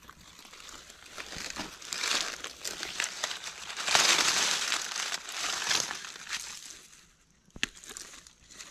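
Dry leaf litter crackling and rustling as a hand pushes through it to pick a mushroom, loudest in the middle and dying away near the end with a single sharp crack.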